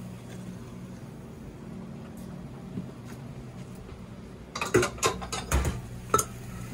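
Metal saucepan knocking and clinking against a stand mixer's steel bowl as thick dough is scraped from it with a spatula: a quick run of sharp clinks and a dull thud in the last two seconds. A steady low hum runs underneath.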